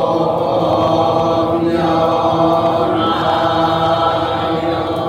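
Nichiren Buddhist chanting by several voices in unison, steady and sustained, with brief breaks for breath about two and three seconds in.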